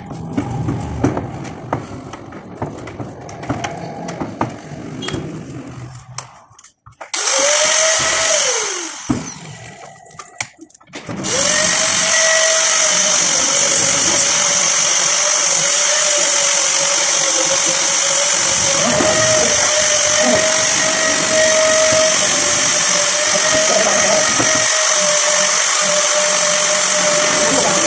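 A handheld angle grinder with a sanding disc, shaping a wooden cricket bat blank. After some light knocks of wood being handled, it runs for about a second and winds down with a falling whine. About 11 s in it starts again and runs steadily with a high whine until near the end.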